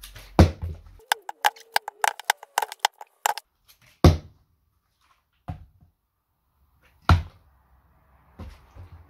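Partly water-filled plastic bottles knocking on a wooden board and on each other during bottle flips: a knock just after the start, a couple of seconds of quick plastic clicks and crackles as the bottles are handled, then sharp thuds as a flipped bottle lands, about 4 s and 7 s in, with lighter taps between.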